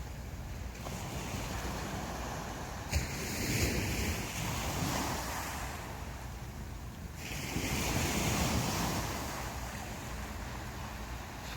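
Sea waves breaking and washing up a sandy beach, the surf swelling twice in long rushes, with wind buffeting the microphone.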